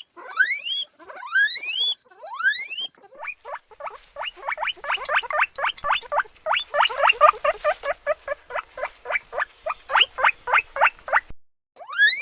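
Guinea pig wheeking: three long rising whistles, then a fast run of short rising squeaks, about four a second, that cuts off abruptly near the end.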